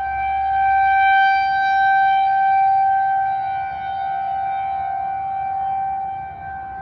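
Federal Signal 2001-SRN rotating outdoor warning siren sounding during a test, holding one steady pitch. Its loudness swells and fades as the rotating head sweeps past, dipping near the end.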